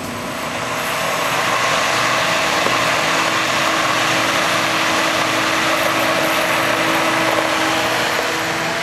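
Handheld immersion blender running in a stainless saucepan of soup, pureeing it. It builds over the first second, then runs steadily.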